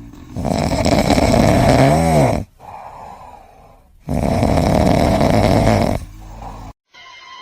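A sleeping pet snoring loudly: two long snoring breaths of about two seconds each, with a quieter breath between them. Near the end it cuts off suddenly and steady musical tones begin.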